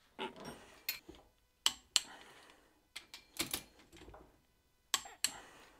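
Torque wrench tightening cylinder-head stud nuts on a Toyota 5E-FE engine block: a series of sharp metal clicks, irregularly spaced, with a quick run of them about three and a half seconds in.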